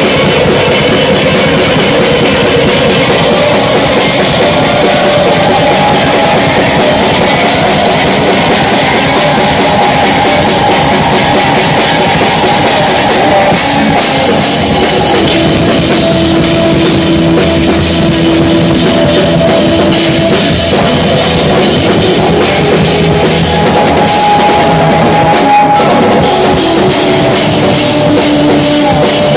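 Live instrumental jazz-rock band playing loud: electric bass and a busy drum kit with cymbals under long held melodic notes.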